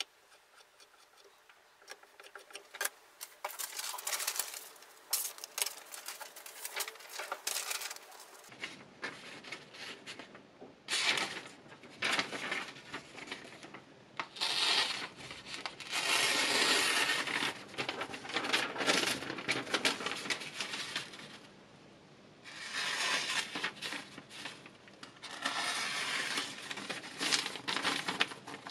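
Diamond sharpening plate of a KMFS Rival sharpener scraping along a folding knife's edge in quick repeated strokes. About eight seconds in this gives way to the freshly sharpened blade slicing through a sheet of paper, with tearing and crinkling in several bursts: a paper-cutting test of the edge's sharpness.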